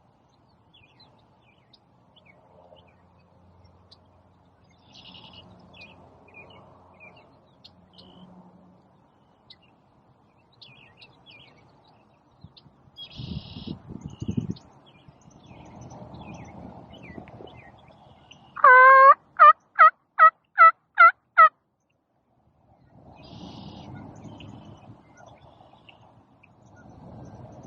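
Turkey yelping: a run of about eight loud, evenly spaced yelps over about three seconds, with small songbirds chirping throughout. A short low rustle comes a few seconds before the yelps.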